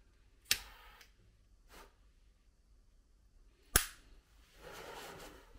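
A handheld lighter being struck twice, two sharp clicks about three seconds apart with the second louder, followed by a brief hiss.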